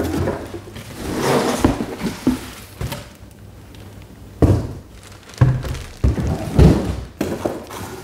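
Unpacking: a cardboard box handled and a plastic-bagged leaf blower body lifted out of it, with rustling and several dull thuds.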